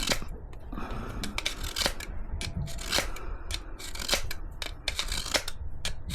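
Hoof knife being sharpened: short scraping strokes of the dull blade against a sharpener, roughly two a second.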